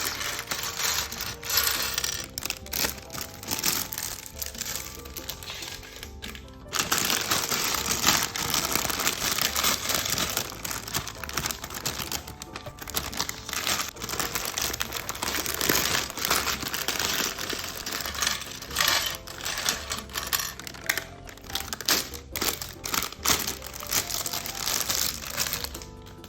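Plastic Lego parts bag being torn open and crinkled, with small plastic pieces clicking and rattling inside, in a dense run of crackles with a short lull about six seconds in.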